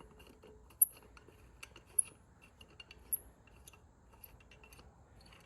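Sharp metallic clicks about once a second, with lighter ticks between, from a socket wrench levered with a steel pipe over its handle while tightening a tie rod end's castle nut.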